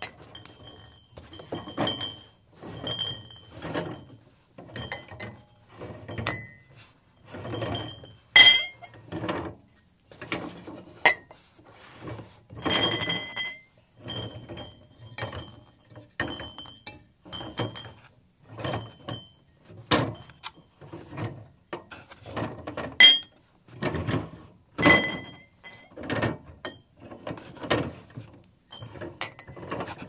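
Close-up rummaging inside a refrigerator: items are moved about and set down on the shelves in a steady string of clinks and knocks. Some clinks have a short glassy ring, and a few are sharper and louder than the rest.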